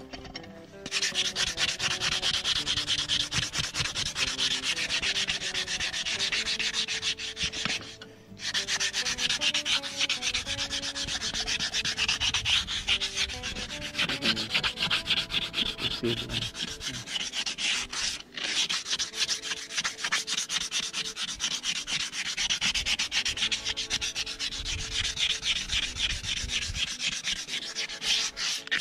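Farrier's hoof rasp filing a horse's hoof wall in rapid back-and-forth strokes: a continuous harsh scraping, with two brief pauses about eight and eighteen seconds in.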